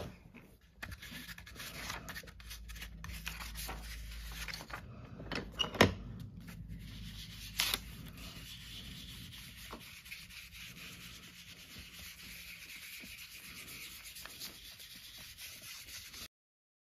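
Steady rubbing and scrubbing on paper, typical of distressing or inking the edges of journal pages, with a few sharp taps along the way; it stops near the end.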